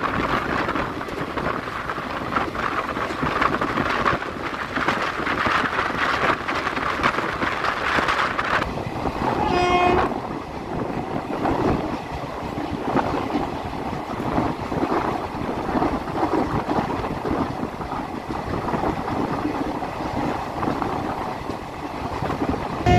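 Passenger train running along the track, a steady noise of wheels on rails. About ten seconds in, the train's horn sounds once, briefly.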